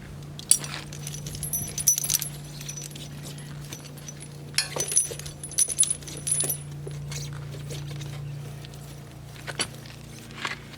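Steel tractor tire chain links jangling and clinking as the chains are handled and pulled, in two bursts about a second in and around the middle, with a few more clinks near the end, over a steady low hum.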